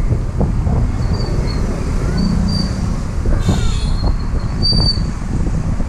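Car driving slowly, its engine and tyre noise a steady low rumble, with a few brief high squeaks over it.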